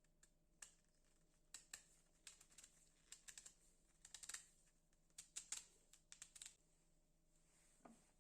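A run of faint, irregular clicks and light taps in small clusters, stopping about six and a half seconds in.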